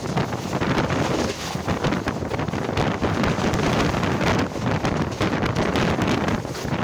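Loud wind buffeting the microphone held out of the door of a fast-moving express train coach, mixed with the rushing noise of the train running on the track.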